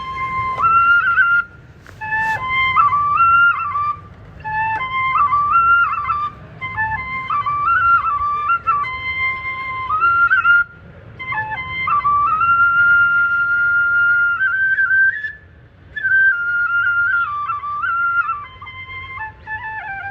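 Music: a solo flute playing a slow melody in short phrases separated by brief pauses, with one long held note about two-thirds of the way through.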